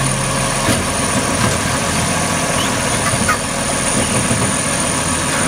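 Automated side-loader garbage truck running while its hydraulic arm tips a wheeled trash cart into the hopper: a steady engine sound whose pitch steps down about a second in, with a few short knocks as the cart is dumped.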